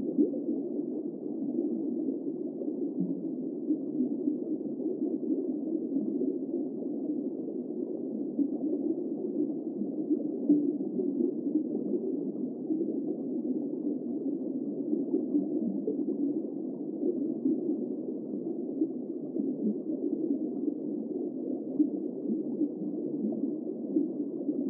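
Steady underwater ambience: an even, low, muffled rush of water with no distinct calls or events.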